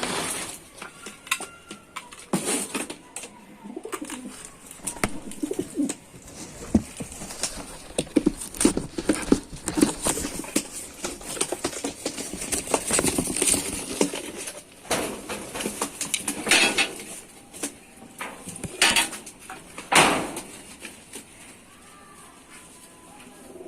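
Pigeons cooing repeatedly, mixed with many short knocks and rustles scattered throughout.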